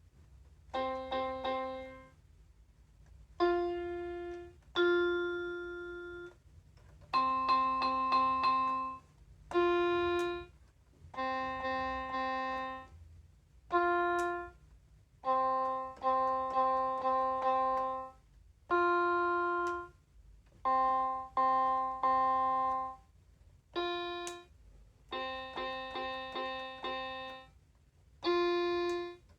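Children's battery-powered toy electronic keyboard playing a simple melody note by note. The notes come in short phrases of quick notes and single held ones, with brief gaps between them.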